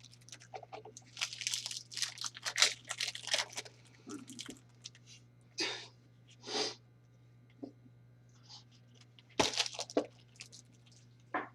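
Trading-card pack wrappers being torn open and handled, with cards sliding out: irregular short bursts of crinkling and tearing, busiest in the first few seconds and again near the middle and end.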